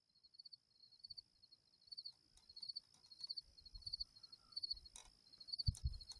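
Crickets chirping, about two pulsed chirps a second, over a steady high whine. A couple of low thuds near the end.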